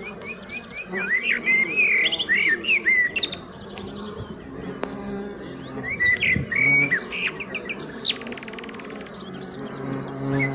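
A songbird singing varied phrases of whistles, chirps and quick trills, in bursts with short pauses between them. Under it runs the low hum of honeybees buzzing around a hive entrance.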